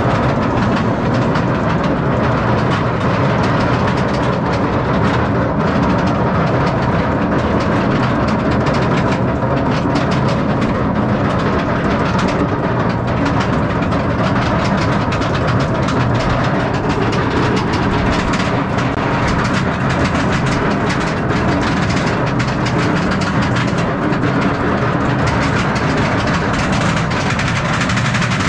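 Chain lift of a Bolliger & Mabillard dive coaster hauling the train up the lift hill: a steady mechanical rattle with fast, even clicking from the chain and anti-rollback.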